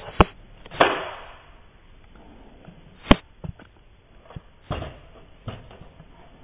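Airsoft pistol firing: two loud sharp snaps, one near the start and another about three seconds in, with a hissing burst about a second in and a few lighter knocks between.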